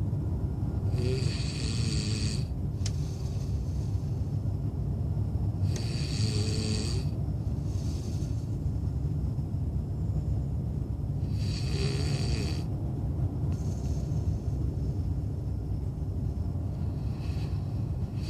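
A man snoring in his sleep: four loud snores about every five to six seconds, with fainter breaths between them, over a steady low rumble.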